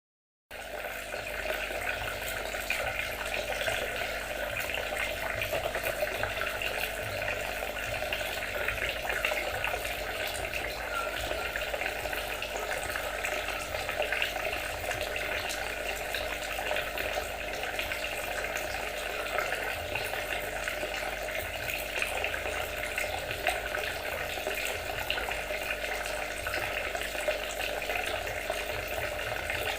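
Water trickling and splashing steadily, with an even, flickering texture that starts abruptly about half a second in.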